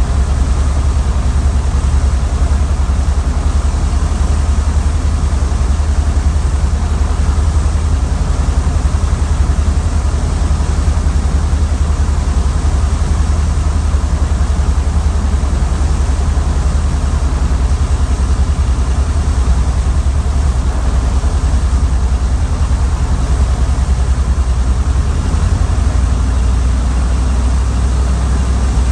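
Funk light airplane's piston engine running steadily, a constant low drone with a rushing hiss over it.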